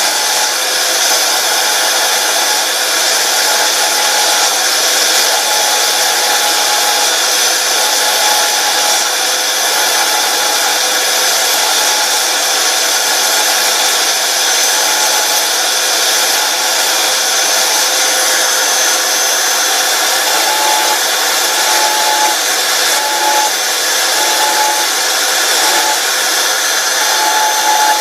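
Belt sander running steadily while it is touched lightly against the helmet's trimmed-out teeth, thinning the plastic. A thin tone comes and goes above the steady running, mostly in the second half.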